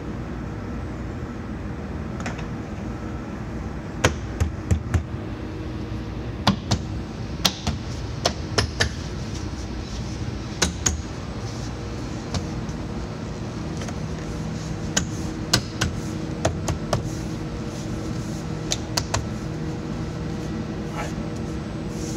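Door trim panel of an Infiniti G37 being pressed onto the door, its plastic retaining clips and the panel clicking and knocking as they seat. Many sharp clicks come in irregular clusters over a steady low hum.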